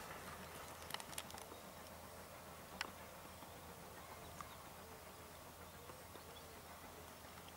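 Faint outdoor ambience with a few scattered short clicks.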